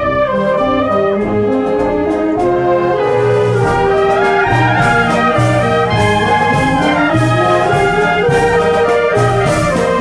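Concert band playing a pasodoble, the brass carrying the tune over a steady march beat with percussion strokes on the beat.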